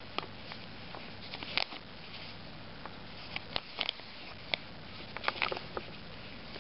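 Thin plastic bag crinkling and clicking in the fingers as a small toy figure sealed inside is handled: irregular soft rustles and ticks, with a short flurry of them about five seconds in.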